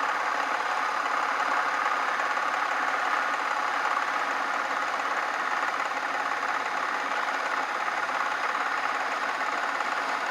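Craftsman 109 bench metal lathe running steadily, turning a workpiece with an even mechanical whir.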